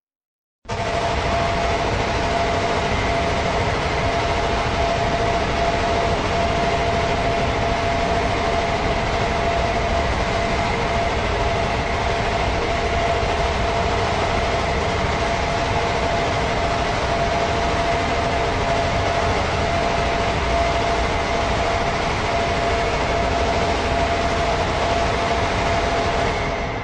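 A steady rumbling noise with a faint constant whine held in it, starting abruptly and running unchanged at one level.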